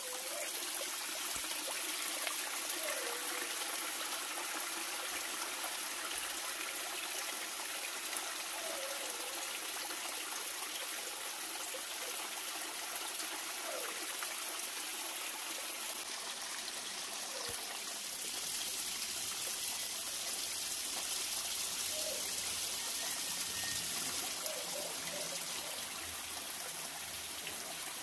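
Shallow river running over rocks: a steady trickling, babbling rush of water, with faint short chirps now and then.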